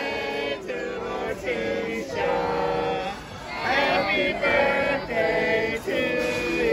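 A group of people singing a birthday song together in held notes.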